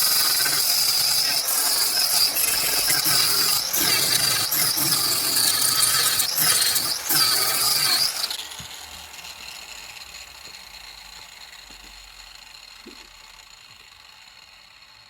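Angle grinder with a grinding disc grinding down fresh welds on a car's steel body panel; its high whine dips each time the disc is pressed into the metal. About eight seconds in it is switched off and the disc spins down, the whine fading away.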